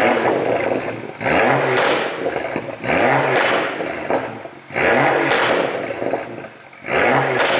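BMW M2's turbocharged straight-six exhaust, revved in five quick throttle blips about every one and a half to two seconds, each rising in pitch then falling away into crackling and popping on the overrun: the pops and crackles of an ECU exhaust-pop tune.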